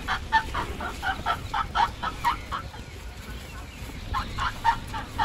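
A bird calling in quick runs of short repeated notes, about four a second, with a pause of a second or so between two runs.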